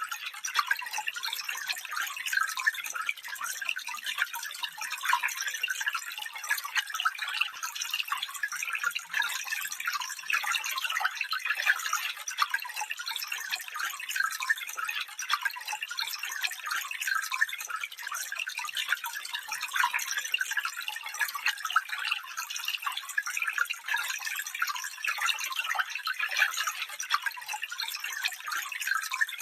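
Small stream running over stones, a steady dense babble and trickle of water with many quick splashes and no low rumble.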